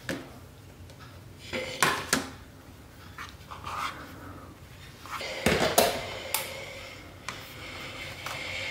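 Hands handling and laying out fabric quilt pieces on a cutting mat: a few soft knocks and rustles, the loudest about five and a half seconds in.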